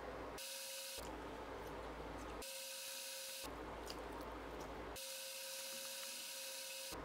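Faint steady hiss and low electrical hum. In three stretches the hum drops out and a thin steady whine with a high hiss takes its place.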